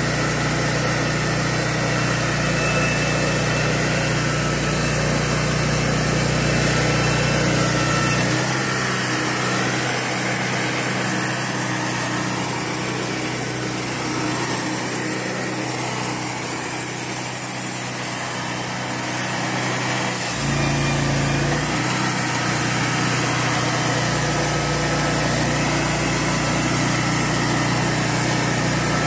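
Portable band sawmill's engine running steadily while the band blade saws a cedar cant into boards. The deep part of the hum thins out about eight seconds in and comes back around twenty seconds in.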